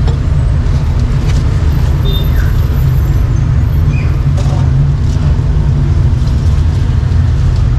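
Steady low rumble of street traffic and engines, with a few faint clicks.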